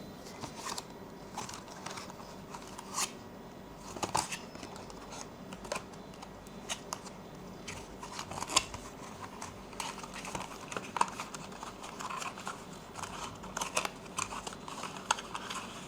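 Irregular sharp clicks, snaps and light rustling of packaging being handled and opened by hand, with no steady rhythm.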